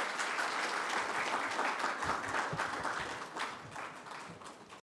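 Audience applauding at the close of a talk. The clapping thins and fades over the last couple of seconds, then cuts off abruptly.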